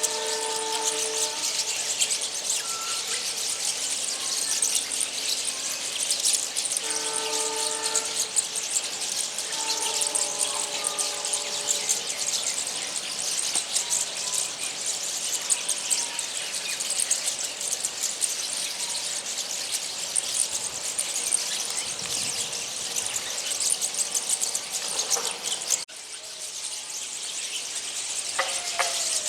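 A flock of small birds chattering and twittering continuously in a dense high-pitched din. A distant horn sounds three times in the first half, each blast held about a second.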